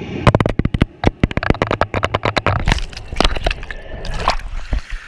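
A GoPro's waterproof housing under water, knocking and scraping in quick, irregular clicks against the pool floor, with water gurgling around it; the clicks thin out near the end.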